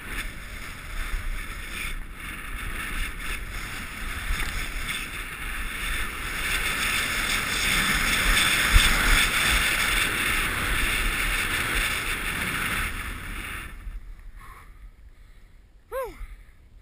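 Wind rushing over an action camera's microphone and skis hissing over snow during a fast downhill run. The noise swells to its loudest midway and dies away about three-quarters of the way through as the skier comes to a stop. Near the end there is one short tone falling in pitch.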